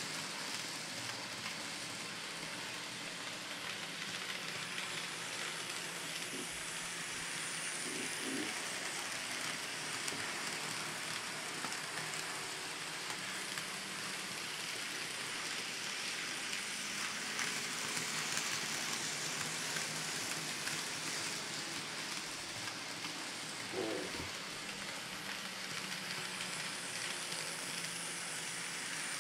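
Kato N scale GE ES44AC model locomotive pulling coal hoppers around the track: a steady, hiss-like rattle of the small wheels on the rails with a faint motor hum.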